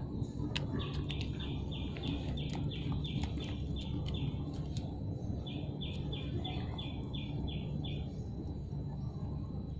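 A bird repeating a short high chirp about three times a second in two runs, the second starting about five and a half seconds in, over a low steady hum.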